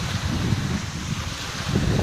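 Wind buffeting the microphone in uneven gusts over a steady hiss of sea waves.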